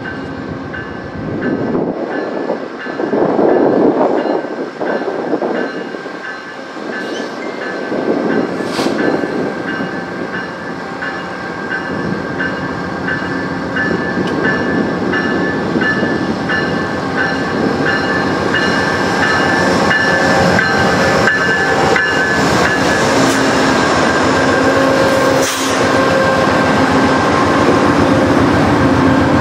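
VIA Rail GE P42DC diesel locomotive approaching and passing with its passenger train, its bell ringing about twice a second. The sound grows steadily louder as the train nears, ending in the wheel noise of the passenger cars going by close.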